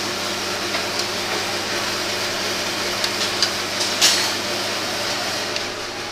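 Steady electric machine hum with hiss, from an appliance behind a dessert counter, with a few light clinks of serving spoons against stainless steel topping pans around the middle, the loudest about four seconds in.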